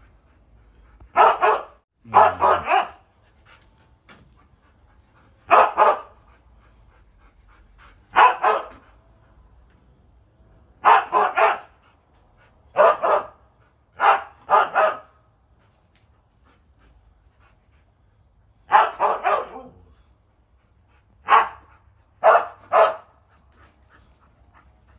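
Siberian husky barking up at birds it is hunting: about a dozen short barks, in ones, twos and threes, with pauses between them.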